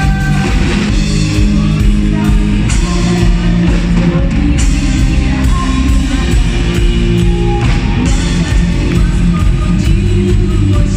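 Live rock band playing loudly: drum kit keeping a steady beat with regular cymbal hits, electric guitars and bass, keyboard and violin, with a woman singing lead into a microphone.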